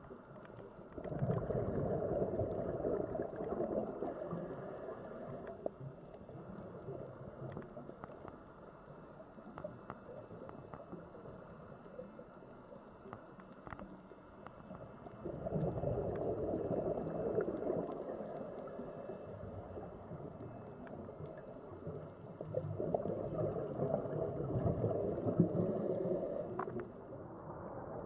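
A scuba diver's exhaled bubbles from the regulator, heard underwater: three bursts of bubbling rumble, each a few seconds long, with a quieter watery hiss between them.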